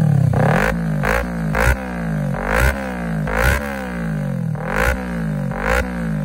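Kawasaki Ninja 300's parallel-twin engine revved in quick throttle blips through a large aftermarket carbon-fibre Akrapovic-style muffler, about seven blips, each falling back toward idle.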